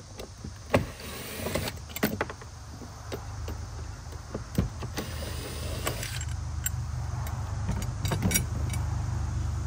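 Clicks, knocks and light metal clatter of a kayak footbrace track's bolts being undone and the track lifted off the hull, over a steady low hum that grows louder from about the middle on.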